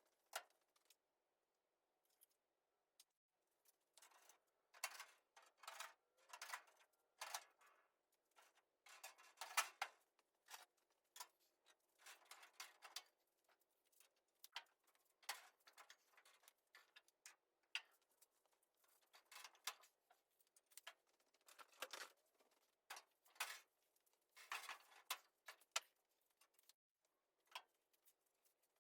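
Faint, irregular clicks, taps and short scrapes of hand tools and sheet-metal parts being handled, coming in uneven clusters.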